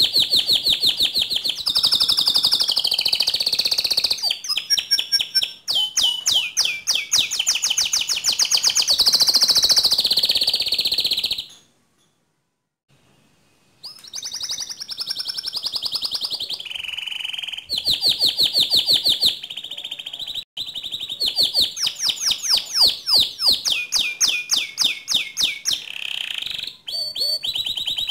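Domestic canary singing continuously in fast, rolling trills of rapidly repeated high notes, switching from one trill to the next every second or two. The song breaks off for about two seconds near the middle.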